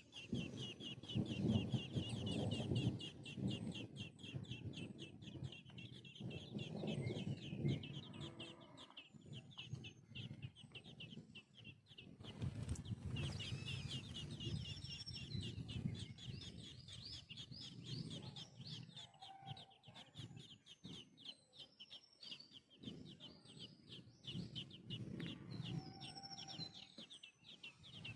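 Baby birds cheeping rapidly and continuously at a high pitch, many calls a second, as they beg to be fed. Lower, irregular sounds from the feeding adult bird come and go beneath them.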